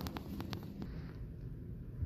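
Handling noise from a handheld phone being carried through the room: a low rumble, with a few sharp clicks in the first half second.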